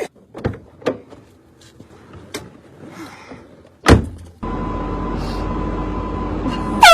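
A few soft clicks, then a sharp knock about four seconds in, followed by a steady hum and rush like a car running. A loud air horn blast begins right at the end.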